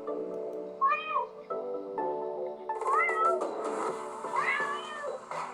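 A kitten meowing three times, each meow rising then falling in pitch, over background music with sustained notes.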